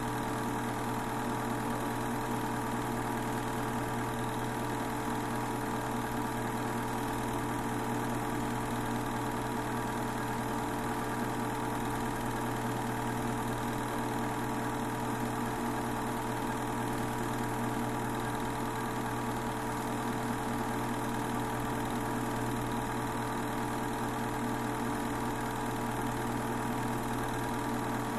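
Steady, unchanging mechanical whir of a running movie projector, picked up during the transfer of a silent Super 8 film.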